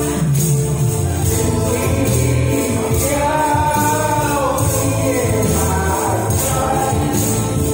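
Man singing into a microphone over a karaoke backing track with a steady bass beat, tambourines jingling along on the beat; his sung line comes in a little over two seconds in.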